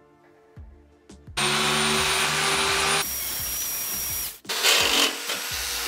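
Electric angle grinder with a sanding disc running on the flat of a rusty handsaw blade: harsh grinding noise over a steady high whine. It starts about a second and a half in and comes in three stretches, changing abruptly twice, with a brief break between the second and third.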